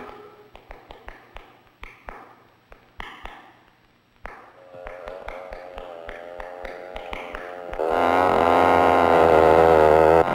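Film score music: a sparse run of short tapped or plucked notes, then sustained tones that swell from about four seconds in and turn loud in the last couple of seconds.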